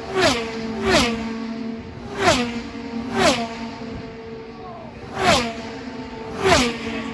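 IndyCars' twin-turbo V6 engines at racing speed passing one after another, about six in seven seconds. Each comes in as a sharp whoosh, and its engine note drops in pitch as it goes by.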